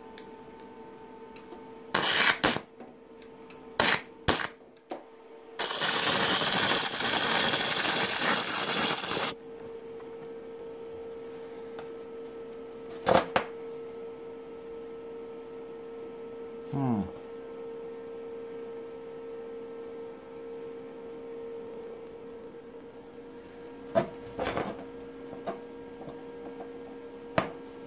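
Flux-core wire welder, torch on negative and ground on positive, striking a few short sputtering starts and then running a steady arc crackle for about three and a half seconds as it lays a bead on a square steel tube. The machine's steady hum runs underneath, and a few sharp clicks follow later.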